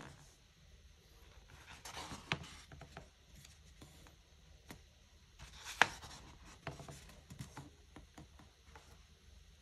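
Pages of a hardcover photo book being turned by hand: the paper swishes and rustles twice, about two seconds in and again about six seconds in, each turn ending in a sharp tick as the page settles.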